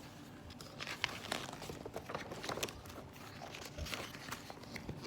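Faint crinkling and soft clicks of a picture book's paper pages being handled and turned.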